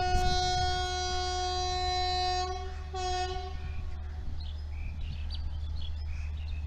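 WAP-4 electric locomotive's horn sounding for departure: one long steady blast that stops about two and a half seconds in, then a short second blast. Birds chirp afterwards over a steady low rumble.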